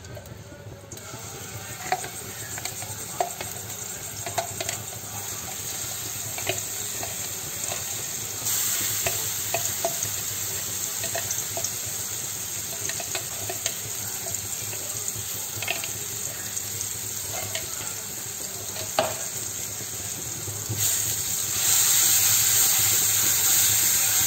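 Red chili spice paste sizzling in hot oil in a wok as it is sautéed and stirred with a silicone spatula, with scattered light taps. The sizzle gets louder about eight seconds in and again near the end.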